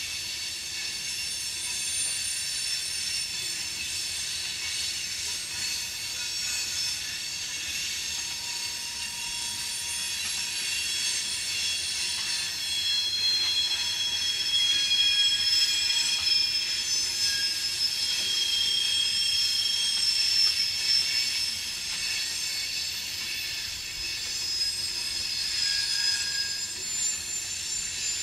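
Loaded rock hopper cars of a freight train rolling through a curve, their wheels squealing in several high, shifting tones over a steady rolling rumble. The squeal grows louder about halfway through.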